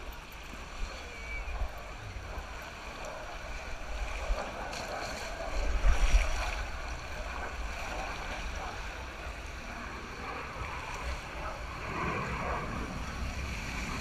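Water rushing and splashing around an inner tube as it slides down an open water-slide channel, with wind buffeting the microphone; the splashing swells loudest about six seconds in.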